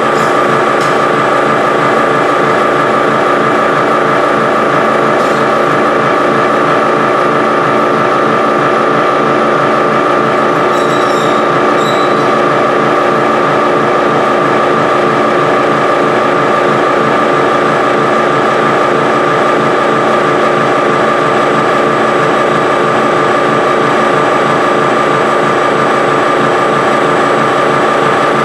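Electric-motor-driven mixer in a paper-stock chest running steadily: a loud, even machine drone with a steady whine over a dense rattle. A brief high squeak rises over it about eleven seconds in.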